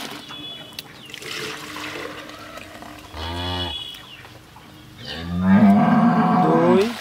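Dairy cows mooing: a short moo about three seconds in, then a longer, louder one from about five seconds to near the end. Under the calls, milk splashes as it is poured from a metal bucket into a plastic mug.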